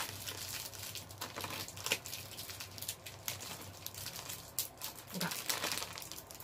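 Plastic candy wrappers crinkling in short, irregular crackles as individually wrapped chewy candies are handled and unwrapped.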